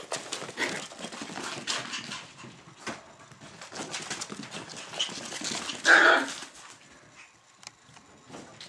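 Chinese crested puppies at play, with a steady run of scuffling and clicking. About six seconds in comes one loud short yap.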